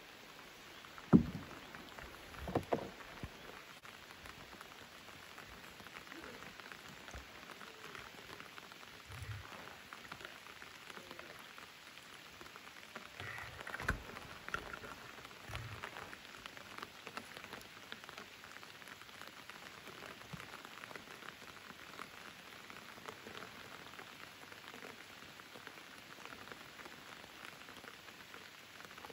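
Rain falling on the open water of a lake: a steady hiss of drops hitting the surface. A few dull knocks stand out, the loudest about a second in and another about halfway through.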